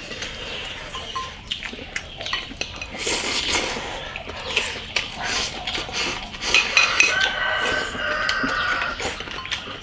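Chopsticks clicking and clinking against porcelain bowls and plates as two people eat, in many short, irregular taps.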